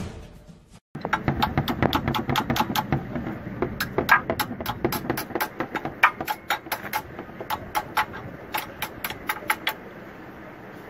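Ratcheting wrench clicking in quick, uneven runs as it turns a bolt at the timing-belt pulleys of a Toyota 2E engine. The clicks start about a second in and stop near the end.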